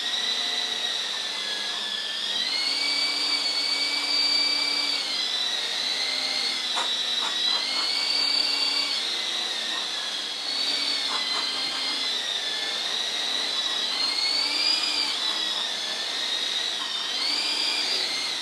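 Small electric coaxial RC helicopter's motors whining and rotors spinning just below hover, the pitch rising and falling again and again as the rudder is wagged back and forth. A few faint clicks.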